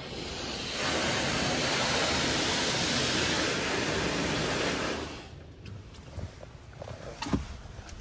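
Wash World Razor touchless car wash spraying spot-free rinse water over a truck: a steady hiss of spray for about five seconds that then cuts off. A few light knocks follow, with one sharp knock near the end.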